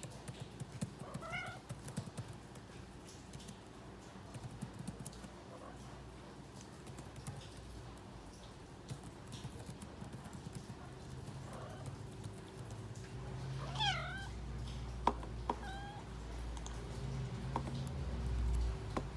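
Calico cat meowing several times: a short meow about a second in, a faint one past the middle, then a louder, wavering meow followed by a short one a second or two later.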